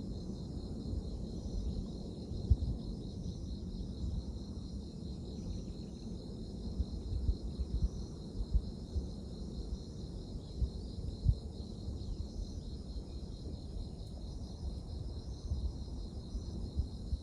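Steady chorus of insects chirping in a high, fast-pulsing trill, under an uneven low rumble of wind on the microphone with occasional louder gusts.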